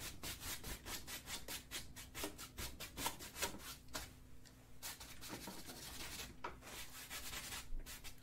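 Paintbrush scrubbing paint onto a stretched canvas in quick, scratchy strokes, several a second, with a short lull about halfway through.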